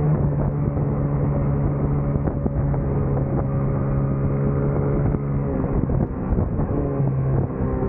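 Racing motorcycle engine running hard at a steady, held pitch as the bike leans through a corner, heard up close from the tail of the bike. About two-thirds of the way through the note wavers and dips for a couple of seconds, then settles into a steady note again.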